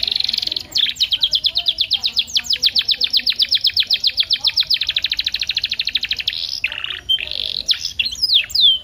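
Domestic canary singing: a long, fast trill of rapidly repeated high notes, about ten a second, lasting roughly six seconds. It then breaks into shorter phrases and a few sharply falling whistles near the end.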